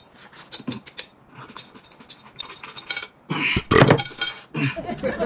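Chopsticks clicking and scraping against a porcelain bowl as the last noodles are picked out: many quick light clinks, then a louder burst of noise about three and a half seconds in.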